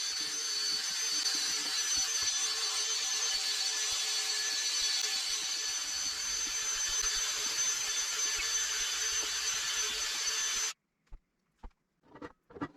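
A small electric machine or power tool running steadily, with a constant whine over a rough rasping noise, then cutting off suddenly near the end.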